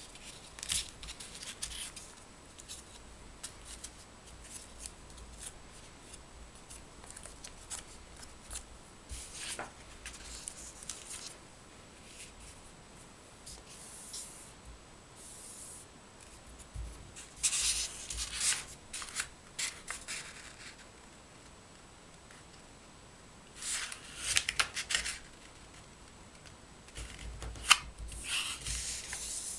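A sheet of printed paper rustles and crinkles in irregular bursts as hands unfold and fold it, with quiet gaps between. One sharp click comes near the end.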